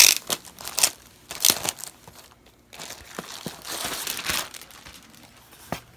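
Clear plastic bag crinkling and rustling as it is pulled off a portable monitor's protective case, in short bursts, with a longer rustle about four seconds in.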